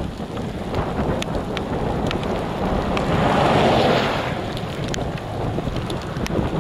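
Gusty wind buffeting the microphone, swelling into a stronger gust about halfway through, with scattered faint ticks.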